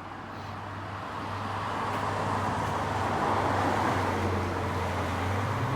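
A car driving past, its sound swelling to a peak about three to four seconds in and then easing off over a steady low hum.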